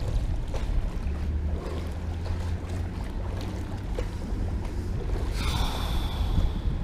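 Water lapping at a small boat's hull, with wind buffeting the microphone over a steady low rumble. Near the end a short hissing rush with a thin whistle in it rises for about a second and a half.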